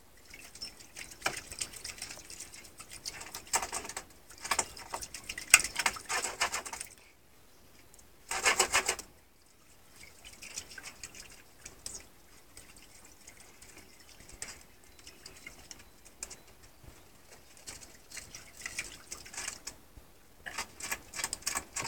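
Ferrets lapping water from a bowl: irregular runs of quick wet clicks, with a louder, denser burst about eight seconds in and more lapping near the end.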